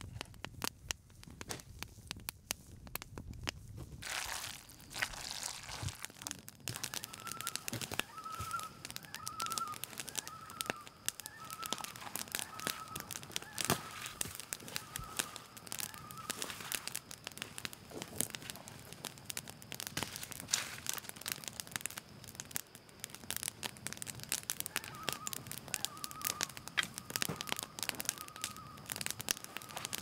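Steady crackling and snapping throughout. A bird repeats a short warbled note about once a second, starting several seconds in, pausing, then resuming near the end.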